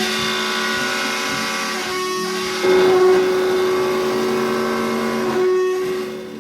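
Guitar playing held, ringing chords, with a louder new chord about two and a half seconds in and another change near the end as the sound fades down.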